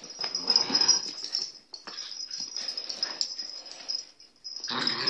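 An adult dog and a young puppy play-fighting, growling and huffing in bursts, with a short pause about four seconds in.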